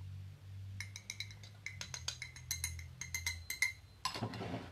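A metal fork clinking and tapping against a measuring cup over a glass bowl as cornstarch is knocked out of the cup: a quick, irregular run of ringing clinks for about three seconds, then a brief rustle near the end.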